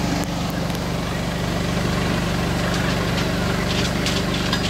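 A steady idling engine hum over the rushing of tidal-bore floodwater surging across the ground, with a few short splashy crackles near the end.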